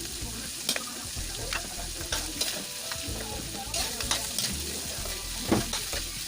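Pork, garlic and onion sizzling in oil in a large wok, with a spatula stirring and scraping the pan in irregular strokes; the loudest knock of the utensil comes near the end.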